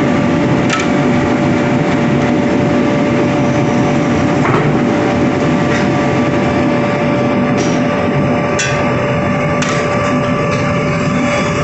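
Forging press and shop machinery running with a steady loud mechanical drone and hum, broken by a few short metal clinks, several in the second half, as hot blanks are handled with tongs at the die.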